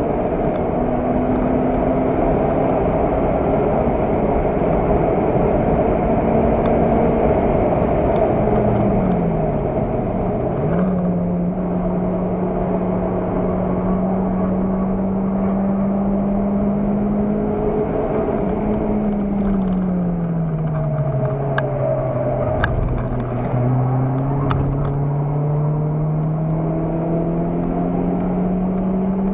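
Car engine heard from inside the cabin while being driven hard around a race circuit: revs held steady, falling away about nine seconds in and again around nineteen seconds, then climbing steadily through the last several seconds, over road and wind noise. A few sharp clicks come in the second half.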